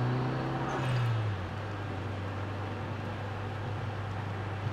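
Mitsubishi Lancer Evolution IV's turbocharged four-cylinder engine heard inside the cabin at low revs, pulling with a short rise in pitch in the first second or so, then settling to a steady low drone under road and rain noise.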